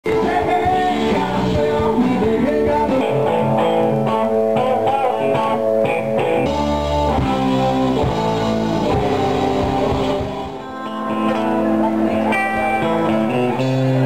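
Rock music led by guitars, with a brief dip in loudness about ten and a half seconds in.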